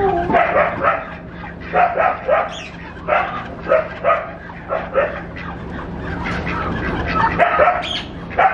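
Short yelping animal calls in clusters of two or three, with a quieter gap about two thirds of the way through, over a faint steady low hum.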